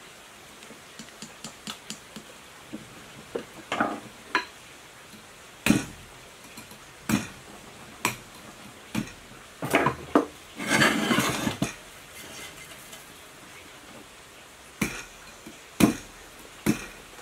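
A mallet knocking on the metal stator housing of an electric water-pump motor: single sharp strikes about a second apart, in two runs, with light metallic clinks and a brief scraping rattle between them.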